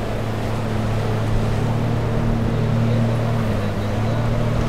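A boat engine running steadily at a low hum, with surf washing in the background.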